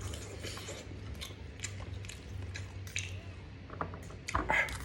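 A person chewing food close to the microphone: irregular wet smacks and clicks of the mouth, a little louder near the end, over a steady low hum.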